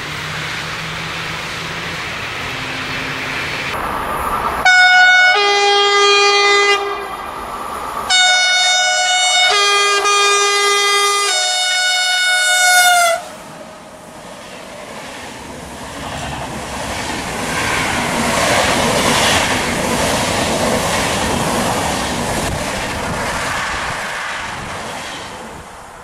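Train horn sounded in two blasts, a short one and then a longer one of about five seconds, in two tones that sound alone and together. The train then rumbles past, wheels clacking over the rails, and the noise fades away near the end.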